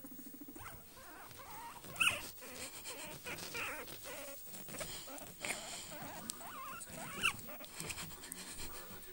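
Guinea pig making many short squeaks that wobble up and down in pitch, with two sharper, louder squeaks about two seconds in and near the end, over rustling and clicks of handling against a blanket.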